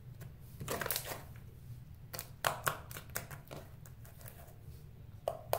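Blue glitter slime being poked and pressed against a floor by fingers, giving scattered sticky clicks and pops: a few about a second in, a cluster around two to three seconds in, and more near the end. The clicks echo in a small bathroom, over a steady low hum.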